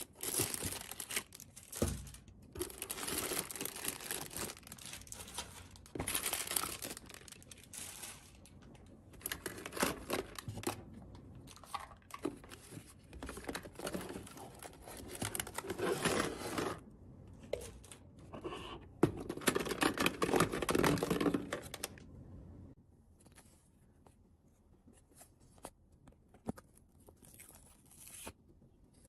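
Toy packaging being torn open and crinkled by hand in close, repeated bursts, loudest a little after halfway; for the last several seconds only faint scattered rustles and taps.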